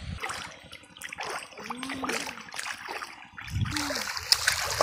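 Water splashing in a shallow muddy river, a run of short irregular splashes that grow louder near the end.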